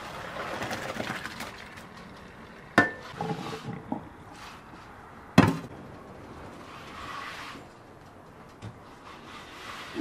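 Parboiled rice and its cooking water poured from a pot into a steel colander in a sink, the water splashing through for about two seconds as the rice is drained. Then two sharp metal clanks of pot against colander, about three and five seconds in, with lighter knocks after them.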